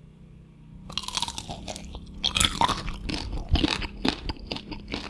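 Crisp, crackling crunches of fried chicken and potato being bitten and chewed. They start about a second in and come thick and fast.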